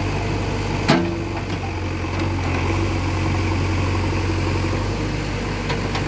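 Diesel engine of a JCB 3DX backhoe loader running steadily while the backhoe arm works. There is one sharp knock about a second in.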